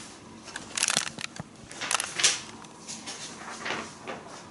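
Sheets of paper on a clipboard rustling in several short bursts as they are handled.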